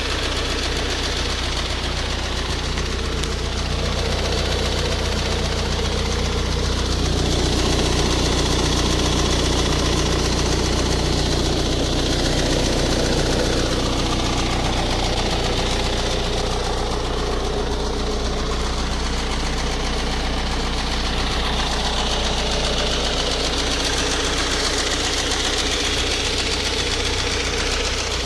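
Ford Focus 1.8 TDCi common-rail turbodiesel engine running steadily with a knocking, ticking noise, a fault the owner traced to a faulty high-pressure fuel pump.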